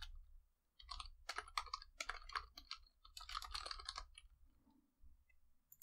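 Faint computer keyboard typing: quick runs of keystrokes in a few bursts, stopping about four seconds in.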